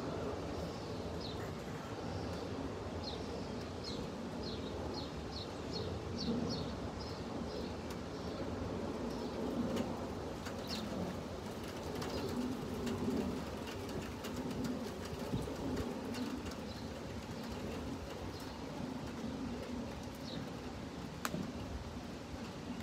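Birds calling: a songbird's quick high chirps repeat several times a second for the first seven seconds or so, then come only now and then, while a dove coos low underneath. A steady faint background hiss runs beneath.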